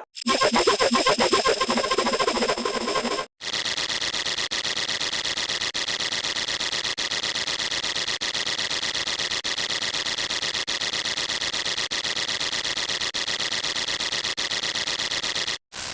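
Two sound-effect clips cut together. First comes a short, busy, noisy sound lasting about three seconds. After a brief silence comes a long, steady, mechanical-sounding noise with a high, even whine, which stops abruptly near the end.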